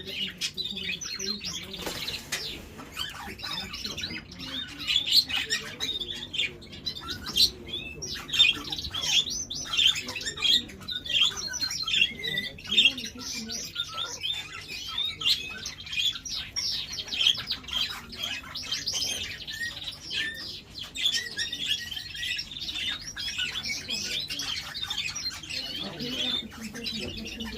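Several parrots chirping and squawking together in a dense, unbroken chatter of short calls.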